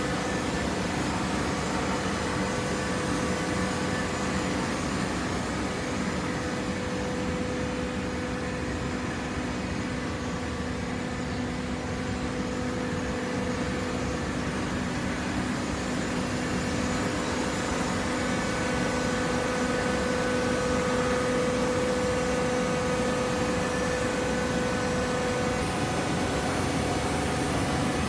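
Cardboard shredder and baler machinery running steadily: a constant mechanical hum with a few steady tones over an even noise, no starts or stops.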